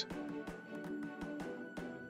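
Background music alone: soft held notes over a light regular beat.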